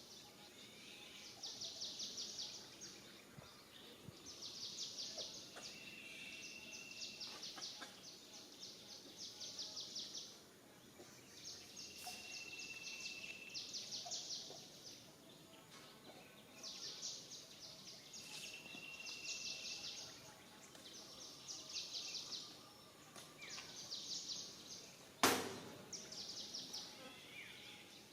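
High, rapidly pulsing buzzy calls of small animals, each lasting about a second and repeating every two or three seconds, with short steady whistle-like tones between some of them. A single sharp knock sounds near the end.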